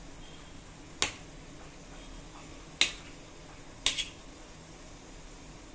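A steel serving spoon chopping boiled potatoes on a stainless-steel plate, its edge striking the plate in three sharp clinks: about a second in, near the middle, and a second after that.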